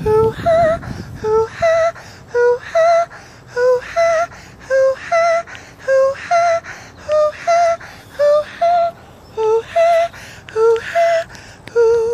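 A simple melody of short, wavering notes, about two a second, mostly stepping back and forth between two pitches with brief gaps between them.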